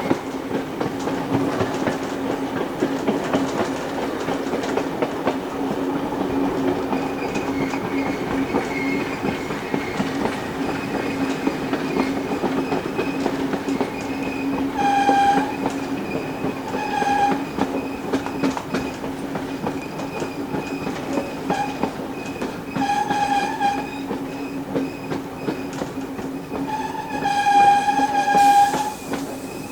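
Train carriages rattling along the track with a steady hum, hauled by steam locomotive 3801, whose steam whistle sounds ahead. Two short blasts come about halfway through, then a longer one, and a long blast near the end is the loudest.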